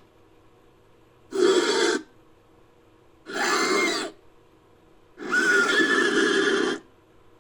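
Designed monster-bat creature calls: three rough, whinny-like cries with a wavering pitch. Each is separated by about a second of silence, and the third is the longest.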